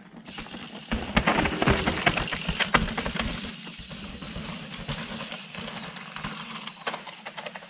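Downhill mountain bike coming down a loose dirt-and-rock track: tyres crunching and skidding on gravel, with clatter and knocks from stones. It starts suddenly, is loudest over the first few seconds, then fades.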